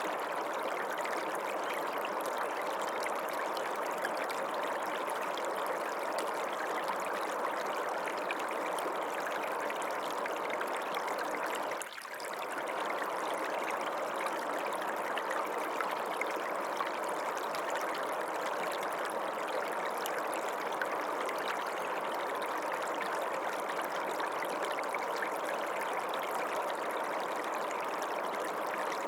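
Running water of a small stream, a steady rushing and trickling flow, with a brief dip in level about twelve seconds in.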